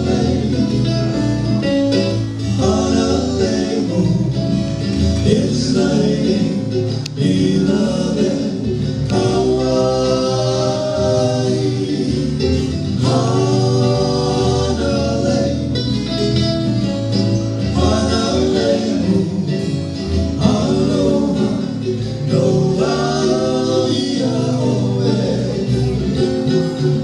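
Live Hawaiian music: men singing a Hawaiian song to strummed ukulele and guitar.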